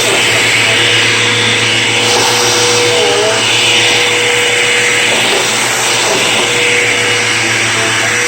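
Bissell CleanView Helix upright vacuum cleaner running over a rug: a steady motor drone with a hum, the hiss of its suction swelling and easing every couple of seconds.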